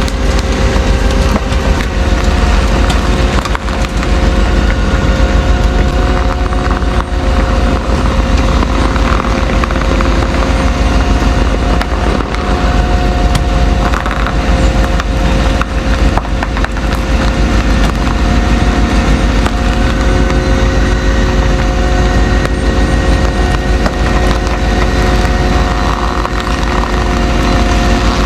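Tow truck engine running steadily with a low rumble, under a steady whine, with some crunching and crackling mixed in.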